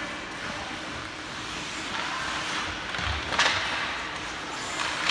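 Ice hockey game ambience in an arena: a steady wash of skating and rink noise, with a sharp knock about three and a half seconds in.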